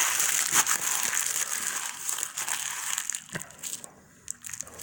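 Paper food wrapper being crumpled up by hand, a dense crackling that dies away about three seconds in, followed by a few scattered rustles.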